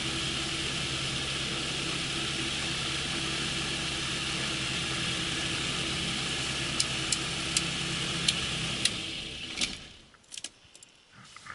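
MTOsport autogyro's engine idling steadily on the ground, with several sharp switch clicks from about seven seconds in. About nine seconds in the engine is shut down and runs down to a stop, leaving a few faint clicks.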